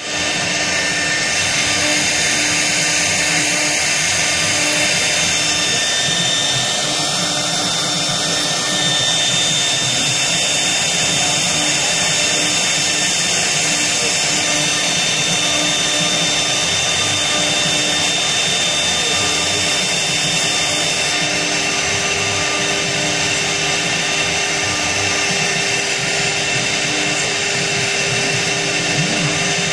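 A CNC router's air-cooled HSD 4.5 kW spindle runs at speed while a small engraving bit cuts letters into granite. The spindle gives a steady whine over the grinding of the bit in the stone, unbroken throughout.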